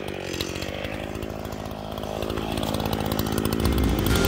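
Chainsaw with a 20-inch bar running at a steady speed, growing gradually louder.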